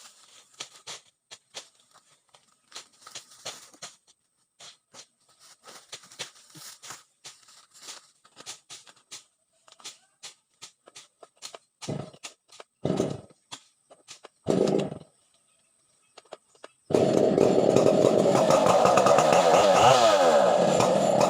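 Gasoline chainsaw being pull-started: light clicks and handling taps, then three short rasping pulls of the starter cord, after which the engine catches and runs loudly and steadily for the last few seconds.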